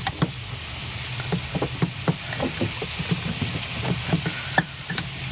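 Irregular small clicks and taps of metal parts being handled, about four a second, over a steady low hum.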